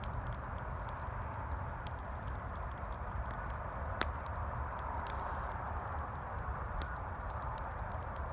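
Campfire crackling with scattered sharp pops, one louder snap about four seconds in, over a steady rumble of distant highway traffic.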